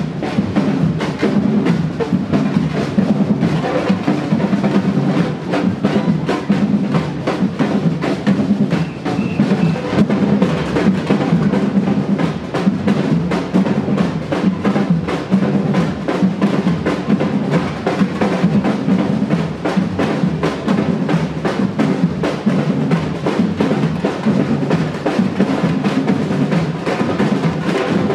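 Batucada percussion band drumming: bass drums and snare drums playing a dense, driving samba beat without pause.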